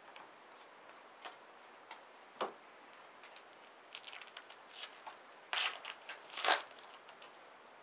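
Trading cards handled on a table: a few light clicks and taps as cards are set down, then the crinkling and tearing of a card pack's wrapper being opened and its cards slid out, loudest about five and a half to six and a half seconds in.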